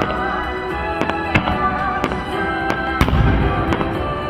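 Aerial firework shells bursting in a series of sharp bangs, the loudest a deep boom about three seconds in. Music with sustained notes plays underneath.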